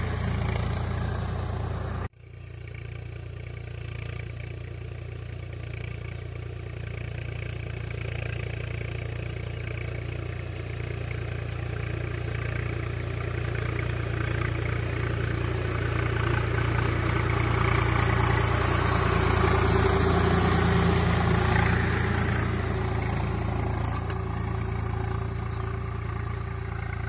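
Swaraj 744FE tractor's three-cylinder diesel engine running steadily under load, dragging a plank leveller over ploughed soil. The sound breaks off sharply for an instant about two seconds in, then grows louder through the middle and eases near the end.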